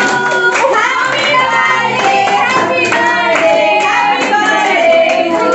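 A group of people clapping along with a song that is being sung.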